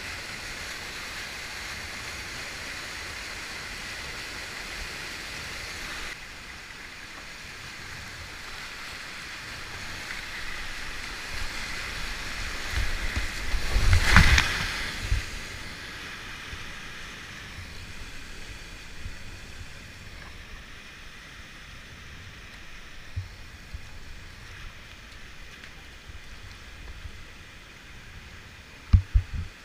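Whitewater rushing steadily around a kayak. About fourteen seconds in, the kayak drops over a ledge and its bow plunges into the foam with a loud splash, after which the water runs quieter. A few short low thumps near the end.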